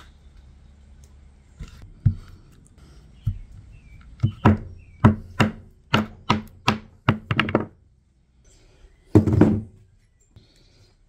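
A hammer driving a nail into a wooden board: a few light taps, then a run of about ten sharp strikes that come faster and faster, and one heavier, longer impact near the end.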